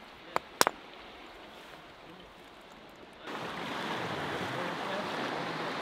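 A hand-held stone striking limpets on a rock to knock them loose: three sharp knocks within the first second. A little after three seconds, steady surf and wind from the sea come in.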